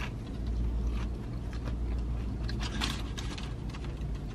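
A bite into a soft biscuit sandwich followed by close-up chewing, with a few soft crunches. A steady low hum runs underneath.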